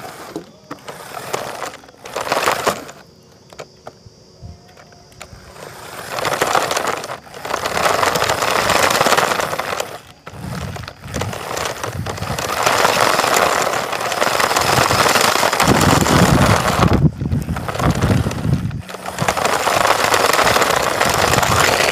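Small RC drift car's tyres and electric motor running over gritty, dusty ground, picked up by a phone mounted on the car itself: a loud scratchy rolling noise that comes in surges, dropping to a quieter stretch about three to five seconds in.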